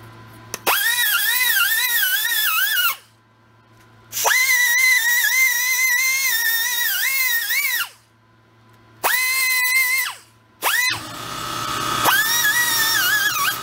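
Small air-powered angle grinder whining in four runs with short pauses, its pitch wavering and dipping as it is pressed against a steel gearbox shaft. It is grinding down Sharpie-marked high spots on the shaft.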